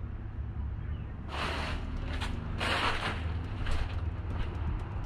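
Rustling and handling noise from body-worn gear as the wearer shifts position: a few short rustles starting about a second and a half in, then scattered light clicks. Underneath is a steady low rumble of wind on the microphone.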